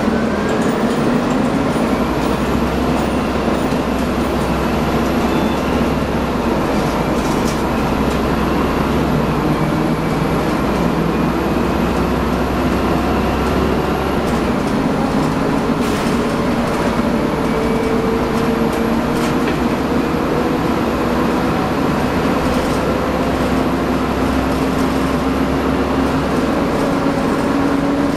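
Cabin sound of a 2000 Orion V city bus on the move: its Detroit Diesel Series 50G natural-gas engine and Allison B400R automatic transmission running with a steady rumble, with whining tones that slowly rise in pitch as it gathers speed. A few short clicks from the body come and go.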